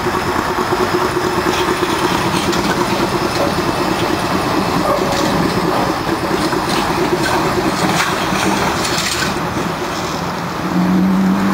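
Vintage electric streetcar passing close by on its rails, a steady running noise with scattered sharp clicks and rattles from the wheels and car body.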